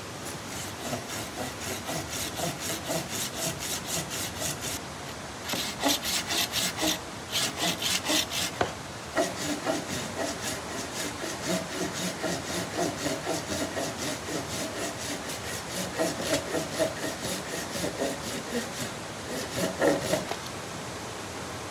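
Yellow-handled hand pruning saw cutting through a fresh log with bark on, in steady back-and-forth strokes of about three a second. The strokes are louder for a few seconds in the middle and stop just before the end.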